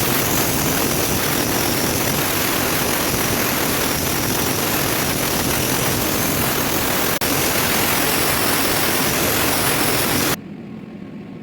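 Wire-feed (MIG) welding arc crackling steadily on steel tube. It breaks off for an instant about 7 seconds in, then stops abruptly near the end.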